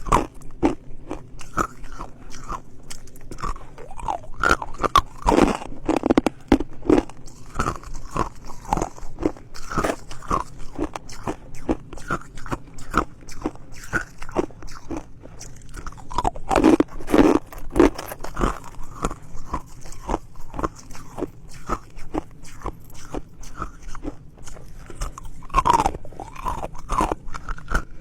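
Ice being bitten and chewed close to the microphone: a dense, rapid crunching and crackling of ice between the teeth, with louder bursts of bites now and then.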